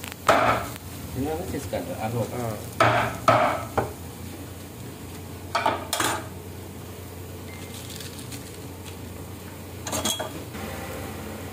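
Metal tongs clacking and scraping on a wooden cutting board while pieces of grilled barbecue chicken are handled, in several short bursts of clatter over a steady low hum.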